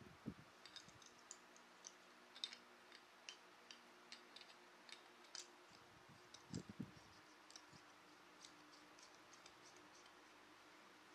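Faint, scattered small clicks and taps from a plastic GE LED bulb and its cardboard box being handled, with a soft low bump about a second in and again about six and a half seconds in.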